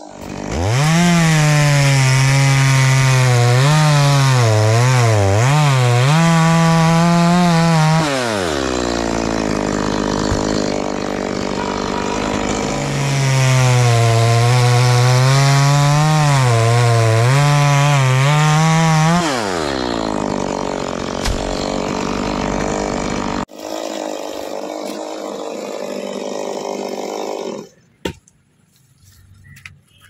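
Two-stroke Stihl chainsaw at full throttle cutting into a tree trunk, its pitch wavering and sagging as the chain bites into the wood, then dropping back to idle. It does this twice. Near the end the sound cuts abruptly to a quieter, rougher running that stops a few seconds later.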